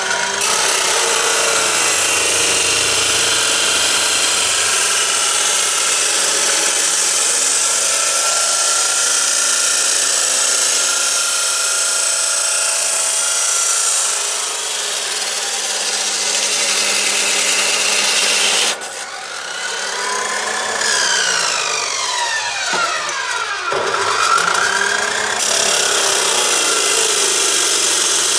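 Yamasu YMS-355A 355 mm abrasive cut-off saw (2800 W motor) running, its disc grinding through steel tube in a harsh, hissing cut. About two-thirds of the way through the cutting stops and the motor's whine falls away, then rises again as it spins back up, and it is cutting steel again near the end.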